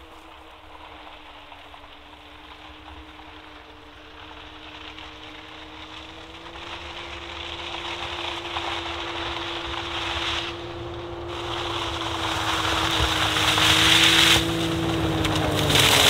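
Can-Am Maverick X3 Turbo side-by-side on snow tracks driving toward the listener, its turbocharged three-cylinder engine a steady drone that grows louder as it approaches, with a rising rushing noise underneath.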